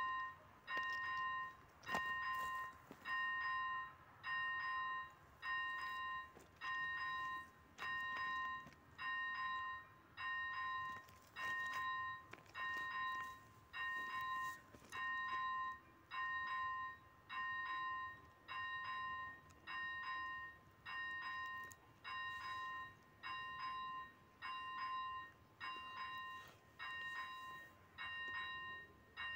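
Electronic warning bell (ZV-01) of an AŽD 71 level-crossing signal, dinging steadily about once a second: the crossing is active and warning of an approaching train.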